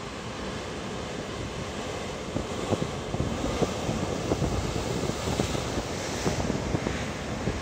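Heavy sea swell breaking and surging against rocks, the wash swelling into a bigger break a few seconds in. Wind buffets the microphone throughout.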